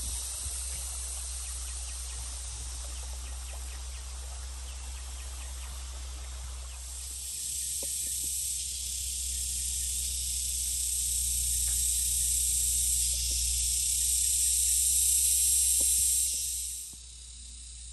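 Steady high-pitched insect chorus that comes in about seven seconds in, grows louder, and cuts off abruptly near the end. Before it there is a fainter outdoor hiss, with a few faint clicks throughout.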